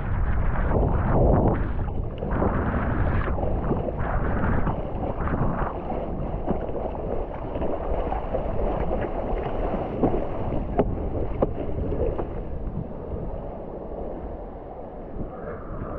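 Wind buffeting the microphone over splashing, sloshing water from a stand-up paddleboard, with several bursts of paddle-stroke splashes in the first five seconds, then a steadier water hiss with a few sharp clicks that fades off near the end.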